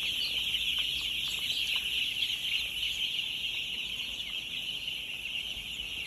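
A large flock of four-day-old broiler chicks peeping all at once: a dense, unbroken chorus of high cheeps.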